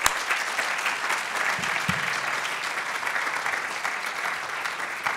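Audience applauding, a steady dense clapping of many hands, with a few sharp, close claps at the very start.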